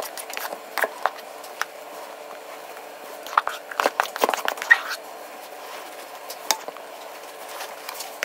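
Spatula scraping and tapping against a stainless steel mixing bowl as thick egg white batter is scooped into a silicone loaf pan: scattered light clicks and scrapes, busiest about three to five seconds in.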